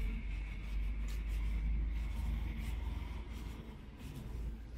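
Quiet town-street ambience: a steady low rumble with faint scattered rustling, with no voices or music.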